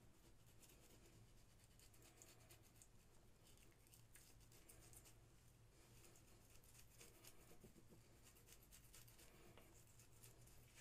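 Near silence: faint rubbing with many light scratchy ticks as a bar of glycerin soap is spread over a wet scalp, over a low steady hum.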